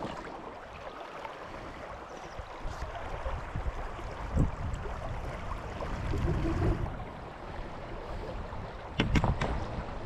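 Shallow river current rushing and lapping close to the microphone, with low wind buffeting and a couple of sharp knocks about nine seconds in.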